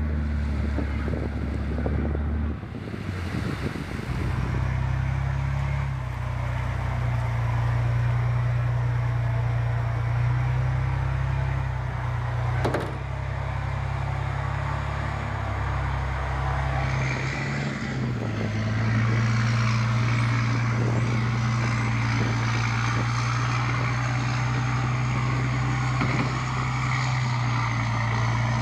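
Amphibious Combat Vehicle's diesel engine running with a steady deep hum. Its note shifts a couple of times, and there is one sharp knock about halfway through.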